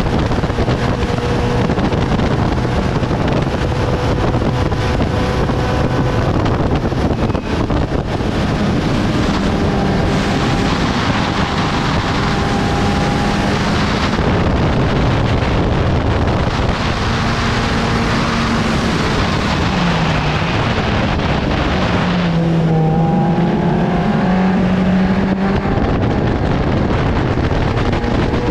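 750 Formula racing car at full racing speed, heard from its own open cockpit: its engine note under a heavy rush of wind on the microphone. Around twenty seconds in the engine pitch falls, then climbs again while the wind rush eases.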